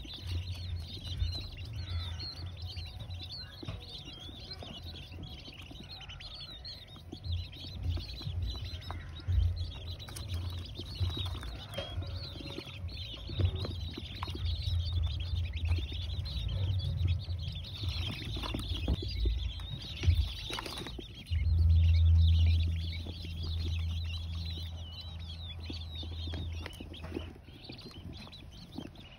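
A flock of king quail (blue-breasted quail) twittering with many soft high chirps while pecking at sawdust litter, with scattered light taps. A low hum runs underneath and swells for several seconds about two-thirds of the way through.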